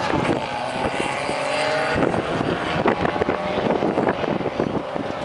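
Small Fiat hatchback engines, a Seicento 1.1 MPI and a Cinquecento, revving hard as the cars accelerate away down a drag strip. The engine pitch drops at an upshift right at the start, then climbs again. The engines fade into wind buffeting the microphone.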